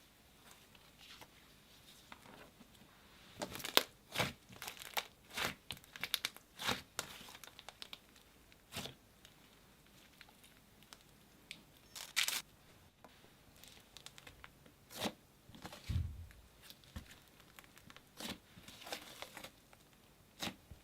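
Slime being squished and stretched by hand, giving irregular crackles, pops and crinkly tearing sounds.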